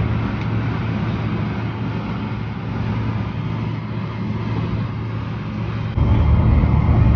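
Steady vehicle engine rumble with a low hum, getting louder about six seconds in.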